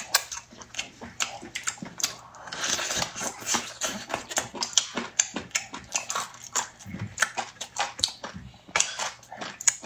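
Close-up eating sounds: people chewing and sucking on braised chicken feet, a quick, irregular run of wet smacks and small clicks.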